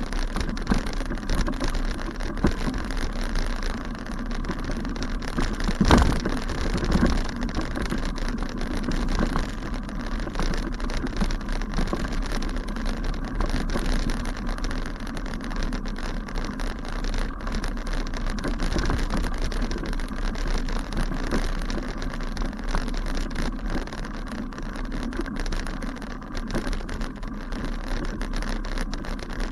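Bicycle rolling over a rough grassy path: a continuous rattle and crackle of the bike jolting on the uneven ground and tyres brushing through the grass, with a louder knock about six seconds in.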